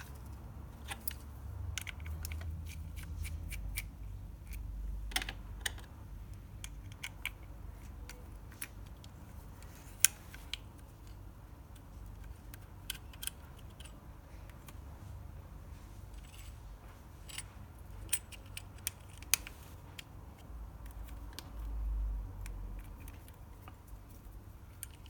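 Scattered small clicks and taps of a Wahl Detailer Cordless trimmer being handled and taken apart to replace its cam follower, over low handling rumble. A few sharper clicks stand out, the loudest about ten seconds in.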